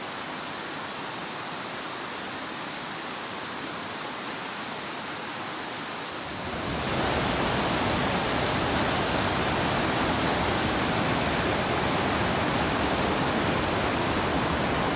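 Waterfall rushing: a steady roar of falling water that grows louder and fuller in the low end about six and a half seconds in.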